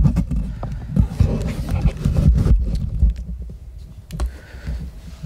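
Handling noise from a clip-on microphone on a clipboard being moved about: a low rumble with scattered clicks and knocks, heaviest in the first three seconds and quieter after that.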